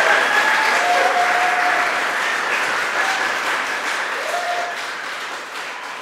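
Audience applauding after a vocal quartet's song, with a few brief cheers over the clapping. The applause fades out gradually.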